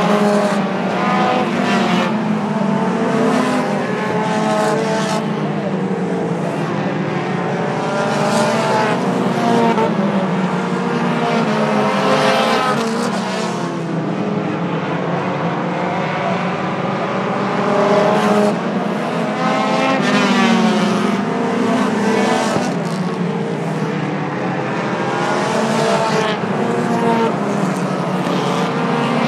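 A pack of Pure Stock race cars running laps on a short oval, several engines overlapping, their pitch rising and falling as the cars accelerate off the turns and lift into them.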